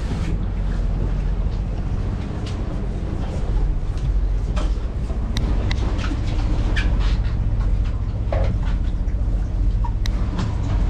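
Steady low drone of the fishing boat's running machinery, with scattered light clicks and knocks on deck.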